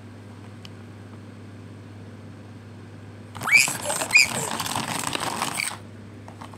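Plastic toy figures and toy furniture knocked over and clattering across a plastic playset, a burst of about two seconds starting about three seconds in, with a couple of short squeaks near its start.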